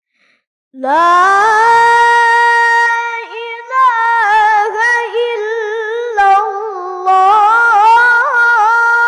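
A boy's high voice reciting the Quran in melodic tilawah style into a microphone, holding long notes with wavering ornaments; it begins about a second in.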